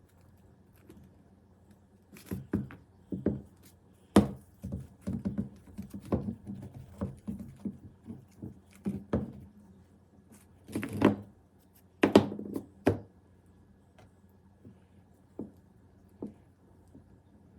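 Handling noises from pieces of rock and other things being moved and set down on a tabletop: a run of irregular knocks and thunks. The loudest come about four seconds in and again around eleven to thirteen seconds in.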